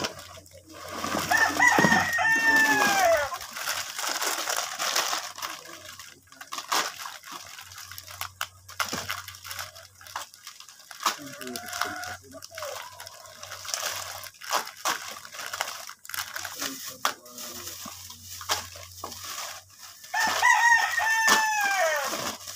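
A rooster crows twice, once about a second in and again near the end, each crow a long call that rises and then falls. Between the crows come the crinkle and rustle of plastic bags and noodle packets being handled.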